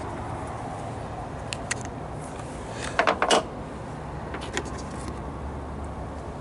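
Hand tools and small parts clicking and clattering against the engine's plastic covers: a few light clicks, a quick cluster of louder clicks about three seconds in, then a couple more, over a steady low background hum.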